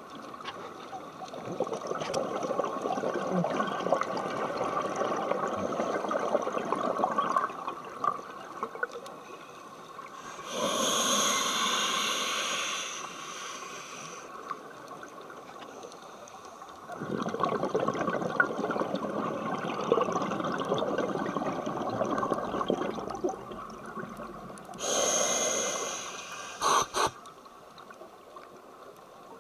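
Scuba diver breathing through a regulator underwater: long stretches of gurgling exhaled bubbles broken by two hissing inhales, the first about ten seconds in and the second near the end.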